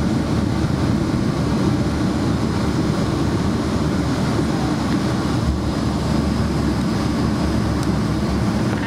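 Cabin noise inside a Boeing 777-300ER rolling along the ground: a steady low rumble from its GE90 engines, airflow and wheels, with a faint thin high tone above it.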